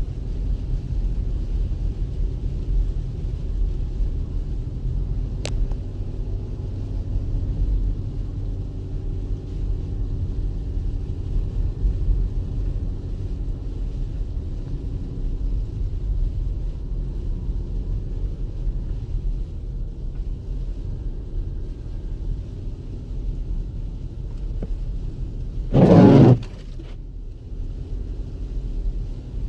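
Low, steady rumble of a 2014 Jeep Grand Cherokee Summit driving on snowy roads, heard from inside the cabin: engine and tyre noise. A faint click comes a few seconds in, and a loud, short burst of noise near the end.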